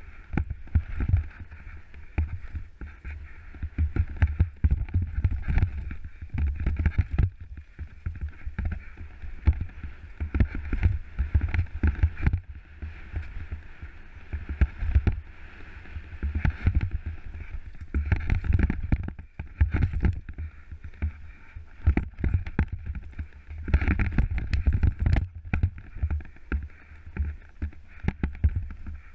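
Scott Gambler 10 downhill mountain bike rattling and knocking over a rocky dirt trail at speed, with rapid, irregular clatters of tyres and frame hitting stones and roots. A deep rumble of wind buffets the helmet camera's microphone throughout.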